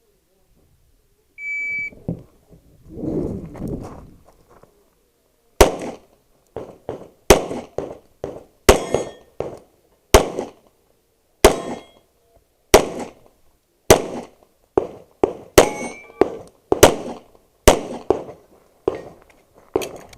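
A shot timer beeps once, briefly, about a second and a half in, right after the "stand by" command. From about five and a half seconds in, a handgun fires a fast, irregular string of shots, roughly one to two a second, each with a short echo.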